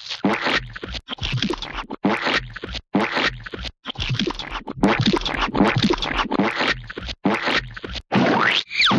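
A string of gooey splat and squelch sound effects, each lasting about a second and separated by short gaps. Near the end a rising, sweeping tone comes in over the splats.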